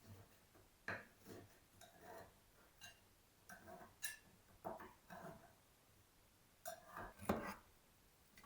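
Irregular light clinks, taps and knocks of kitchenware being handled, with a heavier knock about seven seconds in.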